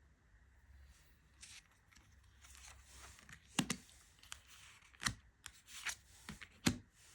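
Tarot cards being handled: light sliding and rustling of card stock, with several sharp card snaps in the second half.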